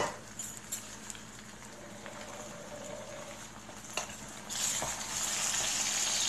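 Sliced potatoes and onion sizzling in oil in a stainless skillet, with a wooden spatula knocking against the pan about four seconds in as they are turned. The sizzle grows louder from then on.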